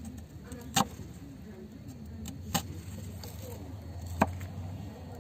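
Kitchen knife slicing an onion on a wooden cutting board: three sharp knocks of the blade striking the board, spaced a second and a half to two seconds apart, over a low steady hum.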